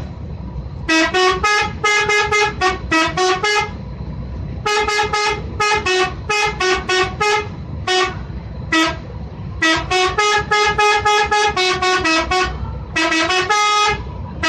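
Telolet bus horn, a set of musical air horns, playing quick runs of short toots that step between pitches in several melodic phrases with brief pauses between them, over a steady low rumble.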